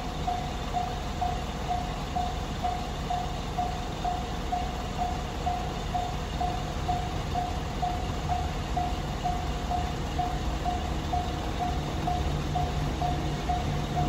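Japanese level-crossing warning bell ringing steadily, one electronic ding about twice a second. Beneath it, a low rumble grows louder near the end as a DD200 diesel-electric locomotive hauling a freight train approaches.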